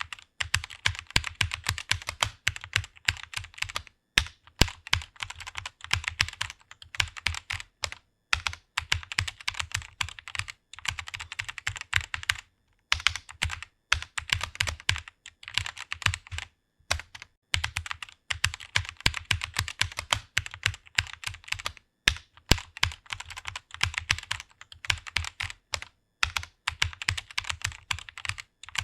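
Fast typing on a computer keyboard: quick runs of key clicks broken by short pauses every few seconds.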